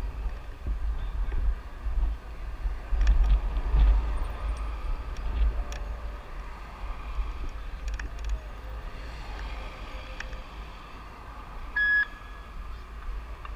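Wind buffeting the microphone in gusts over faint street noise from a mass bicycle ride, with scattered light clicks and one short, high beep near the end.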